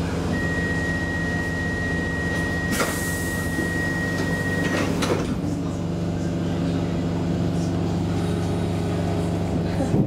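Stockholm metro C6 car's sliding doors closing: a steady high warning tone sounds for about four and a half seconds, with a short hiss and click partway through, then the doors shut with a knock about five seconds in. The car's equipment hums steadily underneath.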